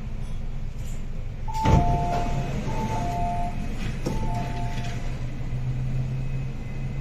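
Door-closing warning chime on an MTR East Rail Line R-Train: a falling two-note beep sounded three times, starting with a loud thump, over the train carriage's steady rumble. A low steady hum comes up near the end.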